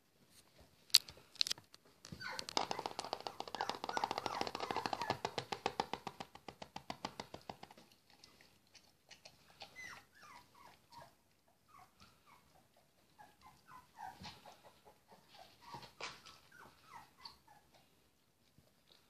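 Three-week-old puppies whimpering and squeaking. A couple of seconds in, one spell of fast, closely repeated squeals lasts about six seconds, and after it come scattered short squeaks. There is a sharp click about a second in.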